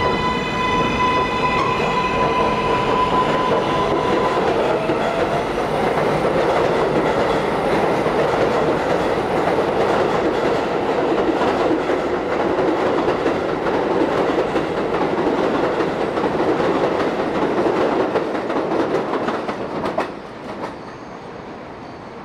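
An R62A subway train pulling out of an elevated station. Its motor whine settles into a steady tone, then the cars roll past close by with loud wheel-on-rail clatter. The noise cuts off abruptly about 20 seconds in, leaving a much quieter background.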